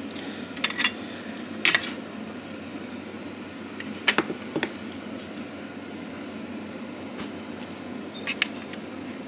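A handful of short, sharp clicks and taps from precision screwdrivers and Torx bits being handled against a folding knife and its tray, over a steady background hum.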